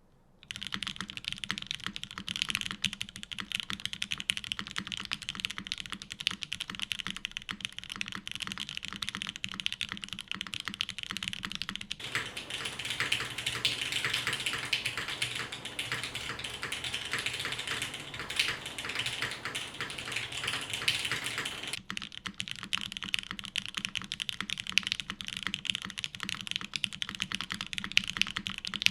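Continuous typing on a custom mechanical keyboard with lubed Gateron Oil King linear switches on a 2 mm polycarbonate plate and GMK keycaps: a fast, dense stream of key clacks. It starts about half a second in, with a denser, louder stretch in the middle.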